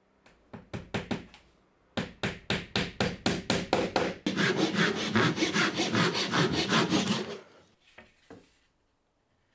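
Small hammer tapping panel pins through thin softwood strips into a plywood door: a few scattered taps, then a quick steady run of taps about five a second. After that comes about three seconds of denser rhythmic rasping on wood, and a couple of faint knocks near the end.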